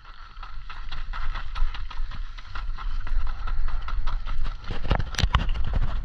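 Quick running footsteps on gravel, with a low rumble of wind and handling on the microphone; a couple of heavier thumps about five seconds in.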